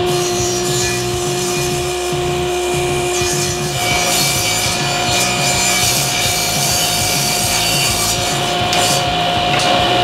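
Table saw running and ripping pallet-wood boards: a steady motor and blade whine, with the hiss of the blade cutting wood growing louder about four seconds in.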